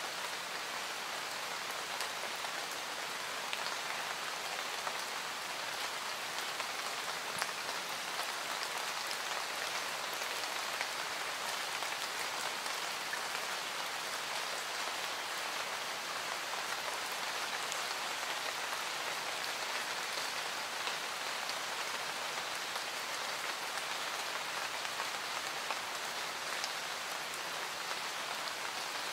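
Steady rain falling, an even hiss with scattered drops ticking through it.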